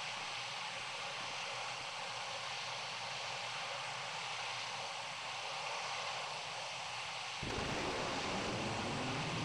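Steady outdoor hiss of wind noise. About seven seconds in, a low rumble suddenly joins it and the sound gets a little louder.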